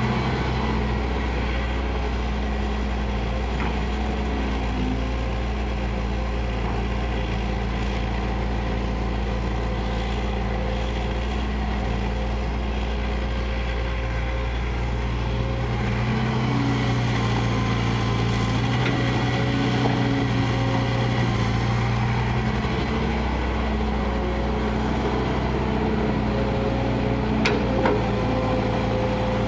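Kobelco hydraulic excavator's diesel engine running steadily while digging, its tone shifting a few times as the load changes, with a short knock near the end.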